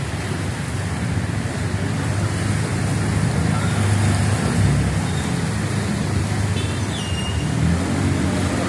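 Road traffic in heavy rain: vehicle engines running low and steady under a continuous hiss of rain and wet road noise, with engine sound swelling as vehicles pass around the middle of the clip.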